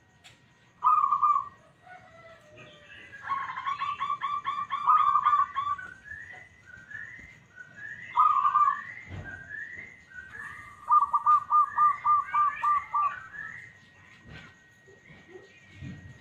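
Zebra dove (perkutut) cooing: a single coo about a second in, then a fast run of short staccato coos, another single coo, and a second fast run of coos near the end. Fainter, higher rising chirps come in between the coo phrases.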